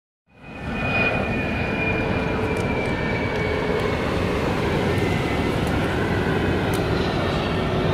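Jet airliner passing low overhead: a steady engine roar with a high whine that falls slowly in pitch as it goes by. The sound comes in abruptly just after the start.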